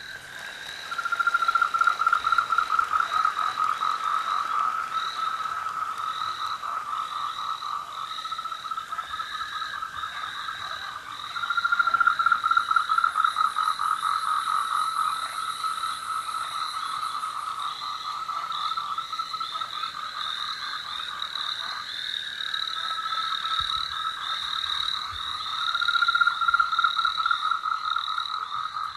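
A chorus of frogs calling in rapid, overlapping pulsed trills that swell louder about a second in, again around twelve seconds in, and near the end. It is a recorded nature soundscape played over a theatre sound system during a blackout between stage numbers.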